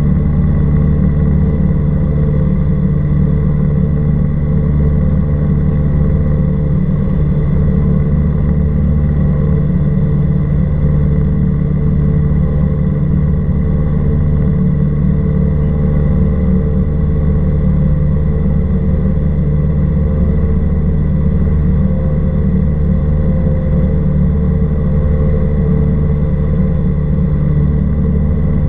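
Cessna 172R Skyhawk's four-cylinder Lycoming engine and propeller droning steadily in flight, at a constant, unchanging power setting.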